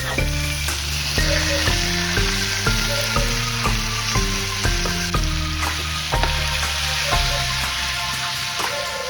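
Food sizzling as it fries in a pan, a steady hiss, under background music with a regular bass line.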